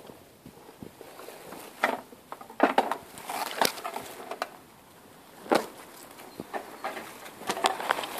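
Dry bamboo canes and leaves rustling and crackling, brushed and pushed aside at close range, in irregular bursts with several sharper snaps.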